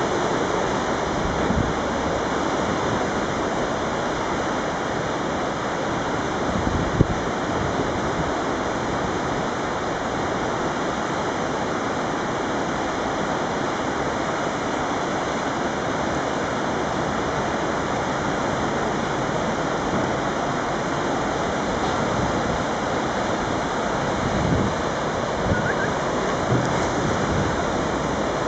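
A river in flood rushing past: a steady, even noise of fast, churning floodwater. A few brief low thumps come about seven seconds in and again near the end.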